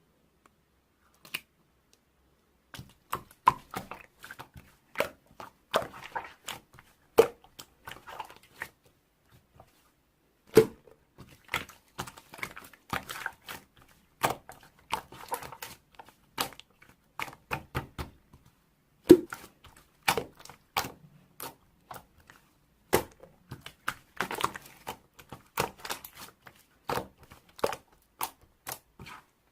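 Slime being squeezed, pressed and folded by hand, giving irregular sharp pops and clicks. The sounds come in clusters with short pauses between them.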